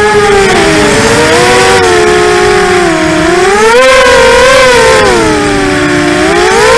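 ImmersionRC Vortex 250 Pro racing quadcopter's brushless motors and propellers whining, recorded from the quad itself. The pitch swings up and down with the throttle, dipping about a second in, climbing around four seconds, dipping again and rising near the end.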